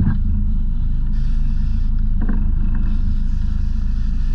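Sport-fishing boat's engine running steadily under way, a constant low drone with a fine even pulse.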